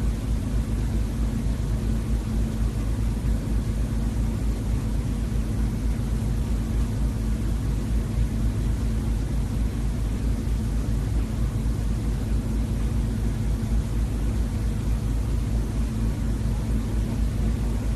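Steady low rumble with a faint constant hum.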